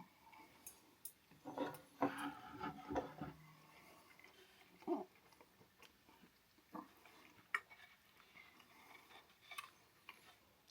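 Close-up mouth sounds of someone eating sushi: wet chewing with smacks and clicks, busiest between about one and a half and three and a half seconds in, then sparser.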